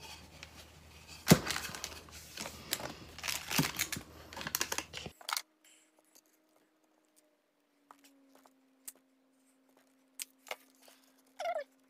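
Hands handling a small wooden board and hand tools on a desk: rustling and scattered clicks and taps, with one sharp click about a second in. After about five seconds it drops to near silence, with only a faint steady tone and a few faint clicks.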